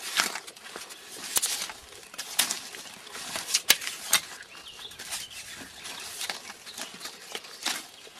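Drawknife shaving bark and wood off a round log: irregular scraping strokes of the blade along the wood, roughly a second apart, some ending in a sharp click.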